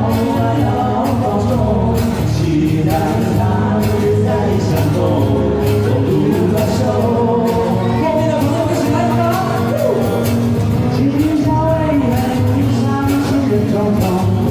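Live band playing a Mandarin pop song, with a lead vocal over sustained backing and a steady drum beat.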